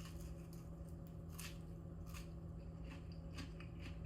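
Someone biting into and chewing a batter-coated pepper ring: several separate crisp crunches spread through, over a steady low hum.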